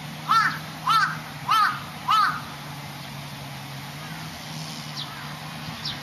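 A crow cawing four times in a steady series, about two-thirds of a second apart, each caw a harsh arched call. A few faint, short, high chirps follow near the end.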